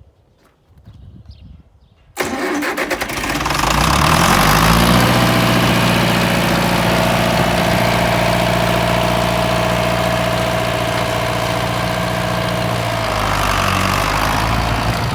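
John Deere 3020 tractor engine started with a screwdriver across the starter: about two seconds in it cranks briefly, catches and picks up speed, runs steadily, then drops back toward idle near the end.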